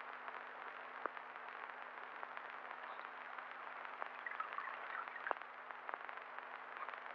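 Steady hiss and faint hum of an old film soundtrack, with scattered clicks and crackles. A faint, soft sound rises briefly a little after four seconds in.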